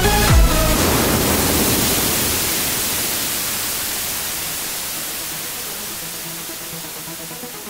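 Background electronic dance music: the beat drops out about a second in, leaving a long hiss of white noise that fades away steadily, with faint synth tones returning near the end.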